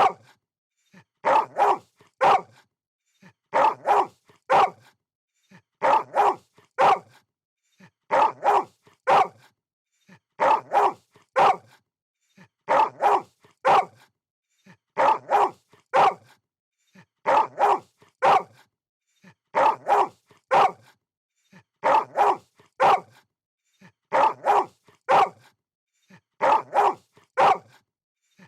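A dog barking in quick bursts of about three barks, the same burst repeating at an even pace about every two and a half seconds: a looped bark sound effect.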